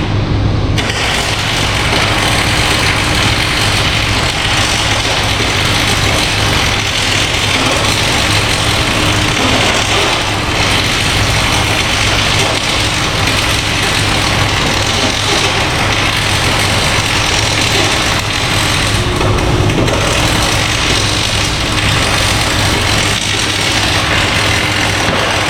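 A machine running steadily with a constant low hum and a hiss, like an engine at idle.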